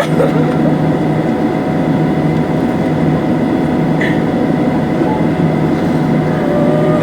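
Steady cabin noise inside a Boeing 737-700 with its CFM56 engines running: a constant drone under a low hum and a few thin, unchanging whining tones.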